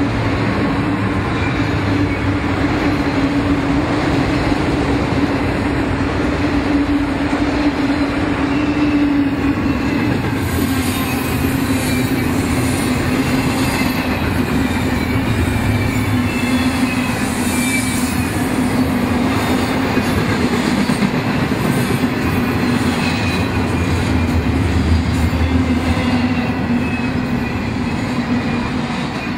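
Freight cars of a long train rolling past close by, autorack cars and then double-stack container well cars: a steady rumble and clatter of steel wheels on rail. From about ten seconds in come thin, high wheel squeals that slide downward in pitch.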